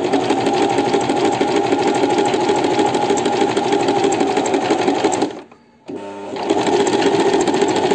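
Singer sewing machine stitching a zigzag overcast seam along a fabric edge with an overlock foot, running steadily at speed. It stops briefly about five and a half seconds in, then starts again and picks up speed.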